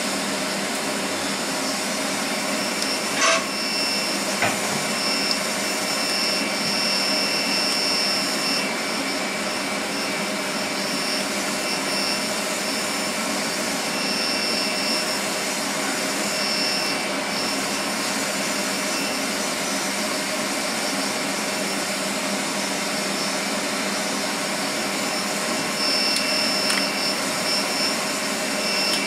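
Steady drone of a running machine with a constant high whine, and a single sharp click about three seconds in.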